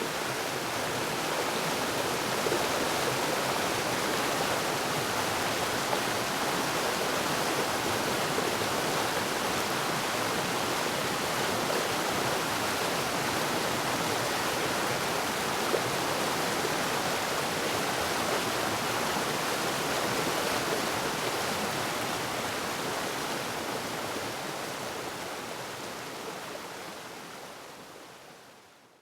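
Waterfall, water rushing and splashing steadily, fading out over the last few seconds.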